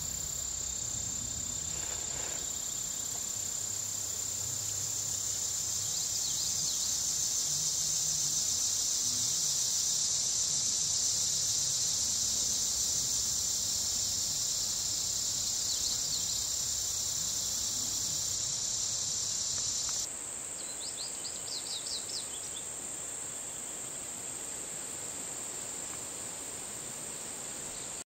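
Steady high-pitched chorus of singing insects. About twenty seconds in it drops abruptly in level, and a quick run of short high chirps follows.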